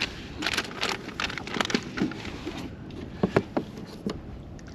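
Small fishing tackle being handled by hand: a quick run of light clicks and plastic rustling, then two sharper clicks a little past the middle.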